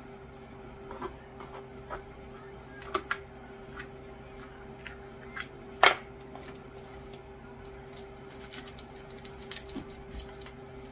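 Light scattered clicks and taps of kitchen utensils and dishes being handled over a steady faint hum, with one sharper knock about six seconds in.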